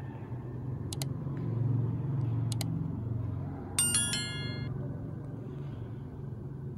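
Subscribe-button animation sound effects: two double mouse clicks about a second and a half apart, then a bright bell ding a little past the middle that rings out briefly. A low steady hum runs underneath.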